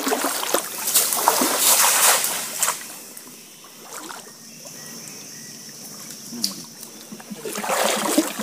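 Shallow water splashing and sloshing around a person wading and working a cast net. It drops to a quiet stretch after about three seconds, with a faint steady high tone, and rises again near the end.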